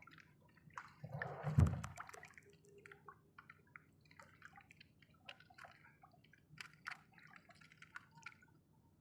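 Water dripping and splashing in small, irregular drops and taps, with one louder thud and splash about a second and a half in.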